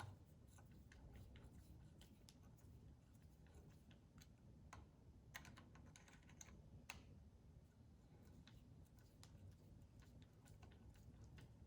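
Faint, irregular small clicks and taps of a screwdriver and self-tapping screws being worked into the laser engraver's height-controller bracket.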